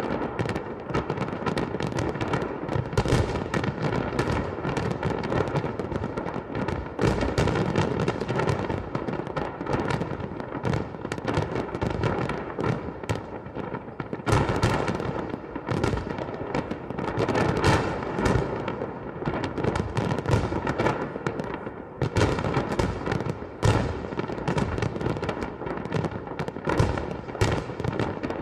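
Fireworks display: a dense, continuous barrage of bangs and crackling bursts with no pause.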